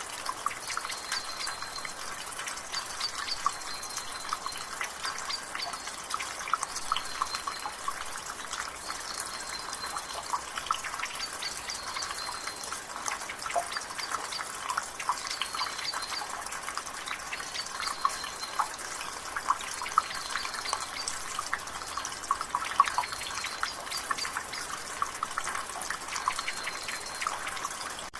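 Rainwater dripping and splattering steadily from a gutter in a dense patter, with a bird repeating a short high call every second or two.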